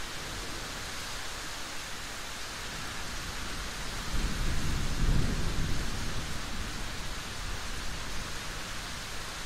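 Steady rain falling, with a low rumble of thunder that swells about four seconds in, peaks a second later and dies away over the next two seconds.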